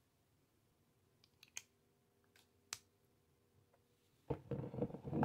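A few small, sharp clicks and taps from a glass perfume bottle and its cap as the cap is taken off and put back on, followed near the end by a louder, busier stretch of handling sound.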